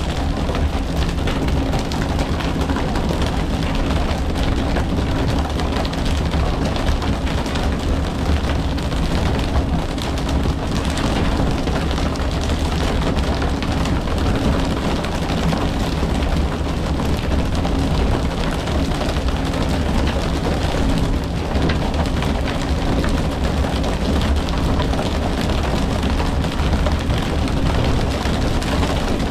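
Fishing boat's engine running with a steady low drone, under a constant rushing hiss of water.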